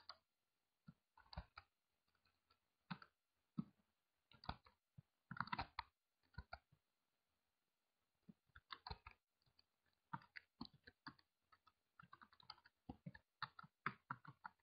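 Faint computer keyboard typing: irregular runs of key clicks, with a pause of about a second and a half midway.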